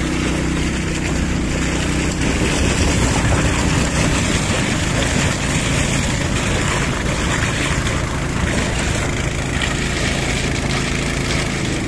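Engine-driven motor pump running steadily while drilling fluid rushes through the injector mixer's hose into the tank, a continuous mix of engine hum and gushing liquid.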